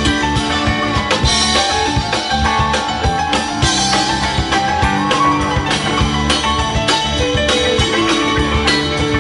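Live rock band playing an instrumental passage, electric guitars, keyboard and drum kit, with a steady drum beat and no vocals. About five seconds in, a lead line slides down in pitch.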